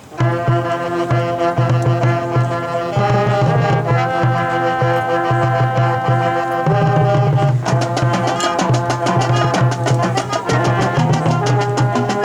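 Marching band starting up suddenly with held brass chords over a pounding low drum. From about eight seconds in, the drumline's quick strokes grow busier.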